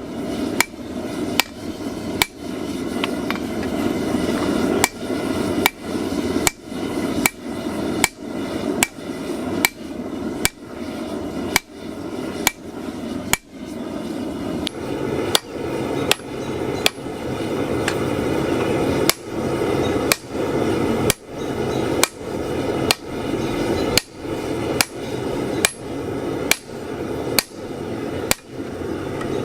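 Hammer blows on hot 5160 steel on an anvil, hand-forging a knife blade: sharp ringing strikes in a steady rhythm, a little more than one a second, over a continuous rushing noise.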